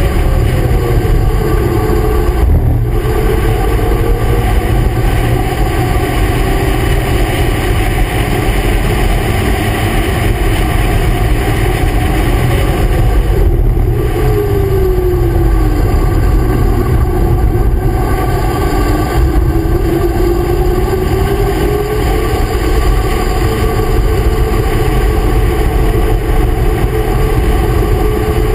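Race car at speed on a track: loud engine running with heavy wind rumble on the exposed camera microphone. About halfway through the engine note drops as the car slows for a corner, then climbs steadily as it accelerates away.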